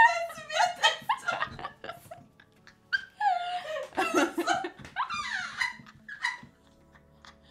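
A woman laughing hard in high-pitched, breathy spurts and gasps. It comes in several fits that die down near the end.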